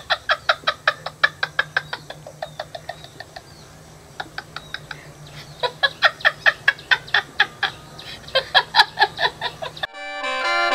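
A woman laughing hard in a long run of quick 'ha' pulses, about four a second, which eases off in the middle and then picks up again. Near the end it cuts off and accordion music starts.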